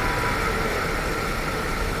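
A boat motor running with a steady hum, over a low, even rumble.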